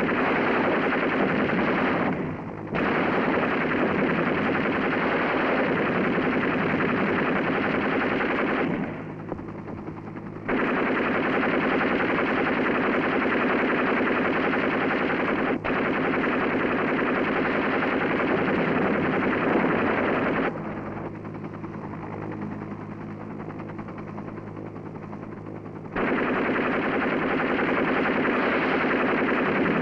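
Machine guns on a UH-1 Huey gunship firing in long continuous bursts of several seconds, with a brief break about two seconds in and longer pauses near ten seconds and after twenty seconds. A steady low hum runs underneath.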